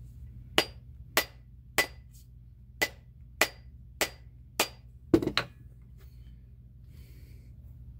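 Rubber mallet striking the end of a wooden hatchet handle held head-down, driving the half-hatchet head further onto the handle. Eight sharp knocks come about every half second. The last is the loudest and is followed by a quick double knock.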